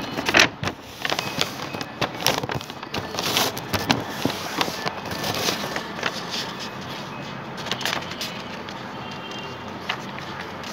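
A sheet of paper rustling and crackling as it is handled, in irregular bursts that are densest in the first half and thin out later.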